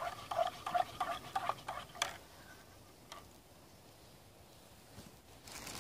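A spoon stirring coffee in a small metal camping mug, clinking against the side with a light ringing about three times a second, stopping about two seconds in after a final tap or two. A brief rustle comes near the end.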